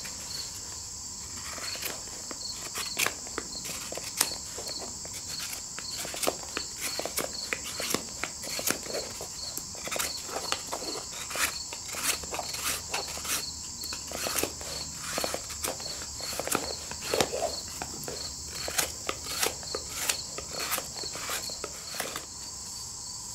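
A knife shaving and scraping the outer bark off a dead tulip poplar bark strip in short, irregular strokes, about one or two a second. A steady high-pitched insect chorus runs underneath.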